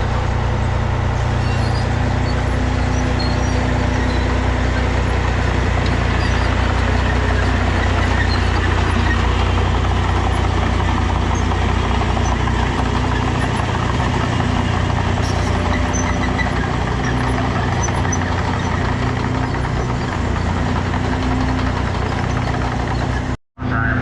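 Heavy diesel engines running steadily on a road-milling job site, a loud constant drone with a low hum. The sound cuts out for a moment near the end.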